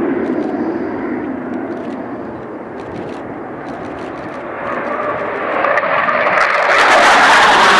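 Panavia Tornado's twin afterburning jet engines in a takeoff climb: a continuous jet rush that eases off briefly, then swells and grows loud and harsh near the end as the jet passes overhead.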